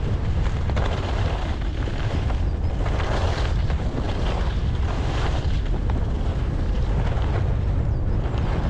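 Wind buffeting the microphone of a camera moving fast along a snowy track, a steady low rumble, with a swish of snow that swells about once a second.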